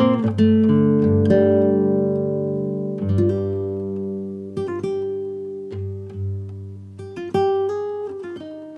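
Background music: a slow melody of plucked notes, each struck and left to ring and fade, over held low bass notes.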